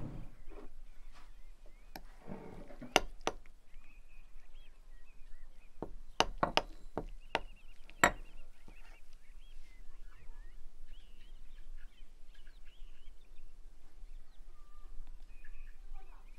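A metal whisk and spoon click and tap against a glass mixing bowl and a ceramic bowl: a handful of sharp taps over several seconds, clustered around the middle. Small birds chirp faintly in the background.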